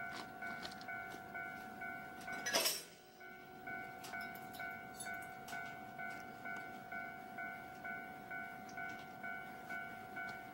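Electronic railway warning bell ringing steadily, about two dings a second, signalling an approaching down train. A sharp knock about two and a half seconds in is the loudest sound.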